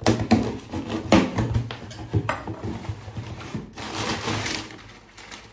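A box being pulled open and its packaging handled: a series of scrapes, rubs and knocks, with a longer rush of rubbing around four seconds in.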